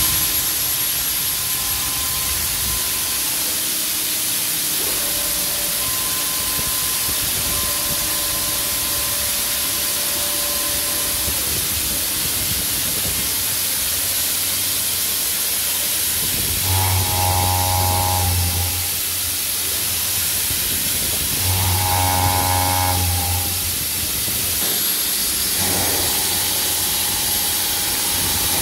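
CNC machining center running with a steady hiss. A 50 mm, five-insert Tetrafeed high-feed face mill turning at 1100 rpm cuts into the plate twice, about 17 and 22 seconds in, and again from about 26 seconds. Each cut is a low, rough hum with a ringing edge.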